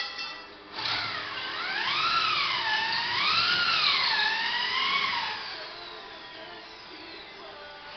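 Electric drill whining, its pitch rising and falling several times, then fading to a fainter whine after about five seconds.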